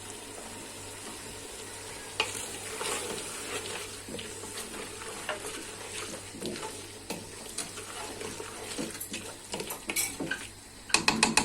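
A spoon stirring and scraping vegetables and spices frying in oil in a pressure-cooker pot, with a light sizzle and scattered clicks of the spoon against the pot. A quick run of sharp knocks comes near the end.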